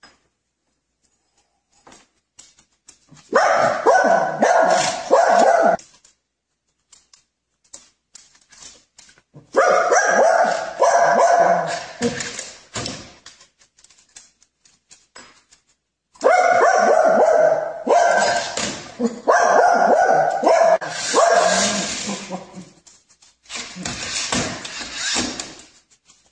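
A dog vocalizing in four long bouts of barking and whining, with short quiet gaps between them.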